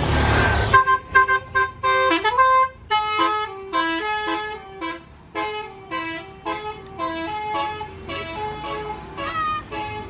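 Tour bus's musical telolet air horn playing a fast melody of short, stepping notes, after a brief rush of noise at the start.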